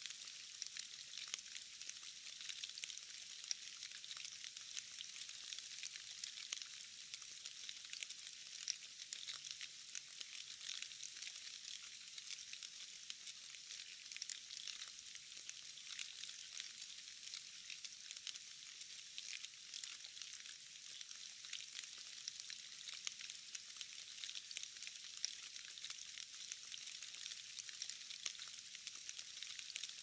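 Steady rain falling into a puddle: an even, dense patter of many small drops, mostly high-pitched, with little low sound beneath.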